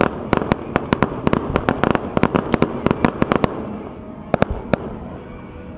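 Fireworks going off in a rapid string of sharp cracks, several a second. They thin to a few scattered cracks after about three and a half seconds.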